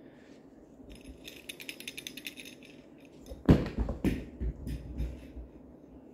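Small cat-toy ball rattling in a quick run of clicks as it is batted across a laminate floor, then a loud thump about halfway through and several softer thumps as the kitten pounces.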